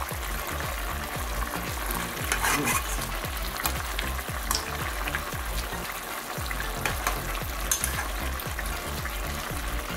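Fish stew cooking down in a metal pot, sizzling steadily, with a metal spoon clicking against the pot now and then as sauce is spooned over the fish.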